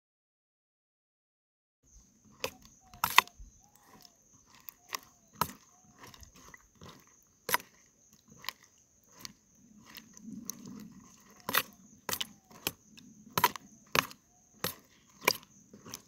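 Metal spatula clinking and tapping against a kadhai as paneer cubes are turned and fried in hot oil: a string of sharp, irregular clinks, starting about two seconds in after a silent gap.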